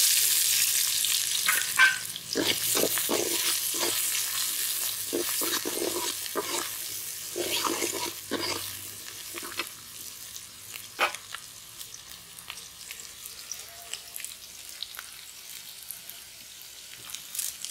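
Chopped onions sizzling in hot oil in an aluminium kadai, loudest at the start and gradually dying down. A steel ladle scrapes and clinks against the pan as the onions are stirred.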